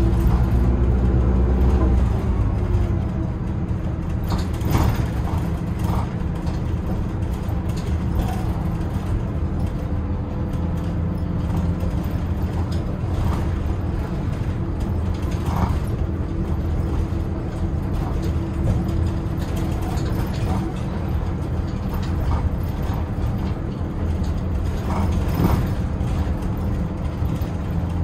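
Cabin sound of a city bus on the move: a steady drone of engine and road noise, heavier low rumble in the first couple of seconds. Scattered short clicks and rattles sound through it.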